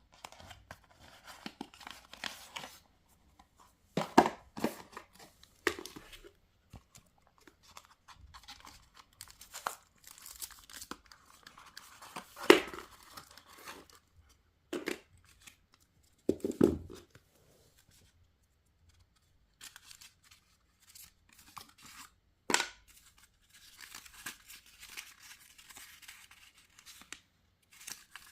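Product packaging being opened and handled by hand: tearing and crinkling, with scattered clicks and a few louder knocks, the loudest about twelve and a half seconds in.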